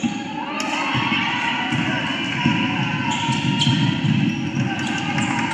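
Crowd noise at a basketball game: many spectators' voices shouting and cheering, louder from about a second in, with a basketball bouncing on the court.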